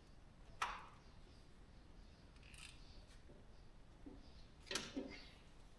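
Mostly quiet, with one sharp click about half a second in and two short knocks near the end.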